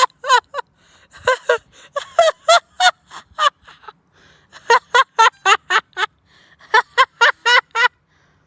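A high-pitched voice laughing in quick runs of short 'ha's, about three or four a second, in several bursts with short pauses between them.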